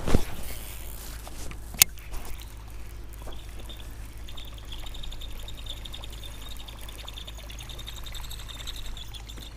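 A sharp click about two seconds in. From about three and a half seconds a steady, fine rapid rattle follows: a buzzbait's spinning blade churning and sputtering across the pond surface as it is reeled in.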